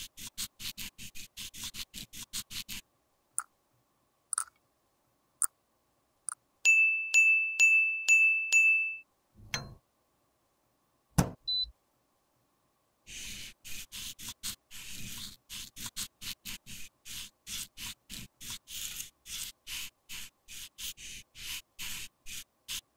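Rapid, soft strokes of a makeup brush against pressed powder, broken midway by five loud electronic beeps from an appliance's control panel, a thump and a sharp click. Then a long run of fast brush strokes, about four a second, over a powder compact.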